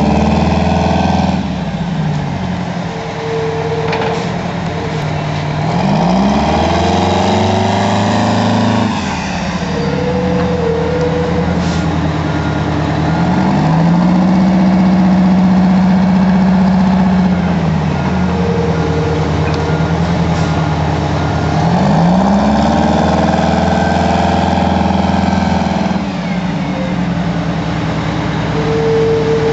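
Heavy diesel engine of an airport crash-rescue fire truck revving up and falling back about three times. Each time the pitch climbs, holds high for a few seconds, then drops back toward idle.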